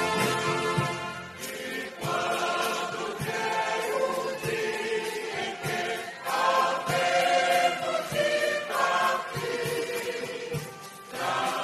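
Choir singing a gospel song, many voices together holding and changing notes, over an accompaniment with a recurring low beat.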